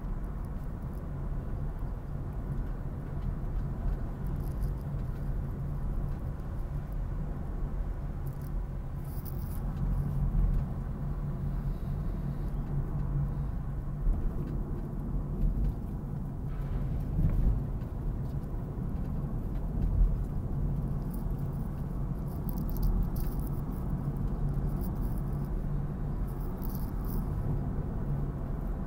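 Car engine and tyre noise heard from inside the cabin while driving at a steady pace, a low, even hum with a few faint high ticks here and there.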